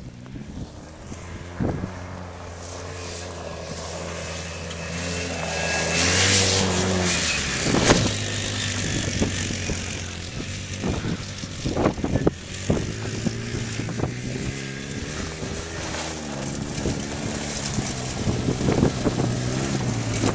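Off-road vehicle engine running, revving up about six seconds in, with a sharp loud thump a couple of seconds later and several smaller knocks after it.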